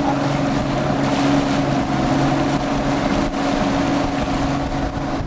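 Boat motor running with a steady hum while trolling, with water rushing in the wake and wind on the microphone.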